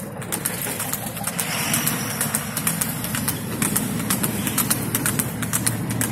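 A vehicle engine running steadily at low speed, with many sharp, irregular clicks over it.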